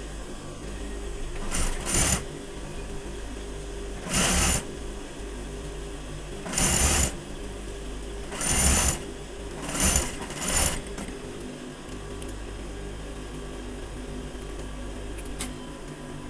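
Industrial flat-bed sewing machine stitching in about seven short runs of under a second each during the first eleven seconds. The motor hums steadily between the runs and after them.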